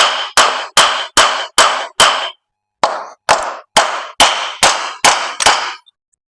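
Steady, even tapping blows struck about two and a half times a second on an air-cooled engine's cylinder barrel, each with a short metallic ring, to break the stuck cylinder free of the engine. There is a brief pause a couple of seconds in, and the tapping stops near the end.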